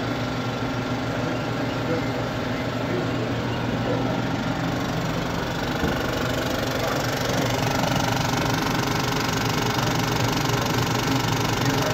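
Simplex 35 mm film projector running a film print: a steady mechanical clatter and hum, growing a little louder about halfway through.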